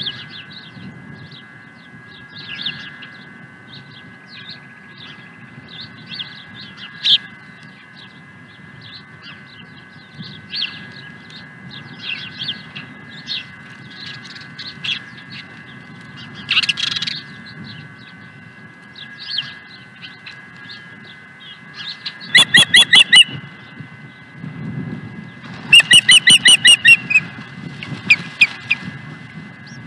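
Osprey calls: scattered short chirps, then in the second half two loud series of rapid, piercing chirps a few seconds apart as a second osprey flies in to the nest. A low wind rumble runs underneath.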